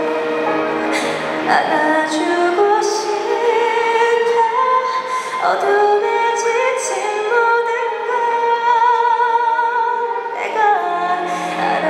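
Female singer singing live with a symphony orchestra accompanying, holding long notes with vibrato.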